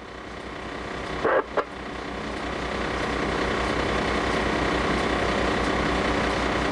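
Fire truck's diesel engine running steadily, building in level over the first few seconds and then holding even, with two short blips about a second and a half in.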